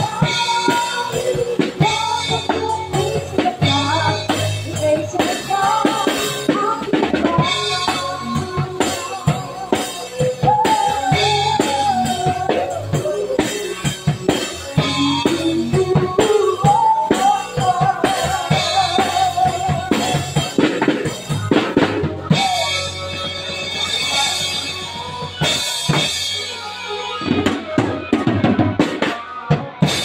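Acoustic drum kit played live, with kick drum, snare, toms and cymbals keeping a steady beat under a song's melody line. The cymbals grow heavier in the last part.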